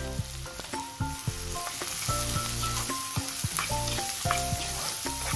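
Chopped onion, garlic and diced carrot sizzling in oil in a wok, stirred with a spoon that clicks against the pan. Soft background music plays throughout.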